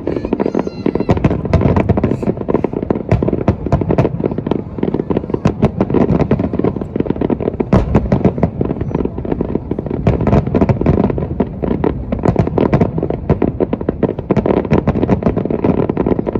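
A dense barrage of aerial fireworks shells bursting in rapid, overlapping succession, many a second, with low booms and crackling running together without a pause.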